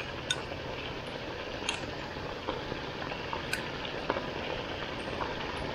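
Braising sauce simmering in a pan, just thickened with a cornstarch slurry: a steady hiss with small, scattered bubbling pops.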